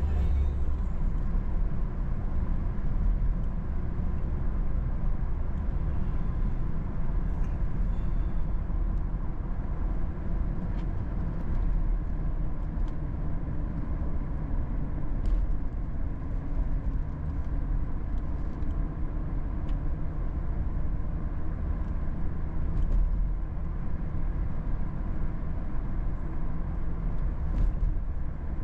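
Truck driving on a wet road, heard from inside the cab: a steady low rumble of engine and tyre noise, with a few faint ticks.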